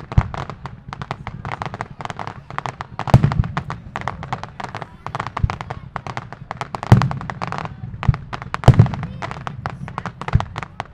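Aerial fireworks display: rapid crackling throughout, with several heavy booms, the loudest about three, seven and nine seconds in.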